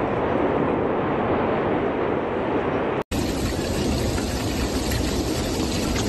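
Steady, loud roar of the erupting Cumbre Vieja volcano on La Palma. It drops out for an instant about three seconds in and resumes.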